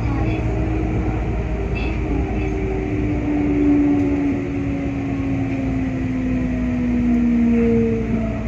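Kintetsu 5800 series electric train's traction motors whining and falling steadily in pitch as it brakes into a station, over a steady low rumble of wheels on track.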